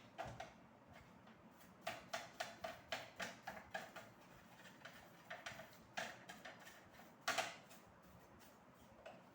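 Light clicks and taps: a quick run of about a dozen, four or five a second, then a few scattered ones and a louder double knock near the end.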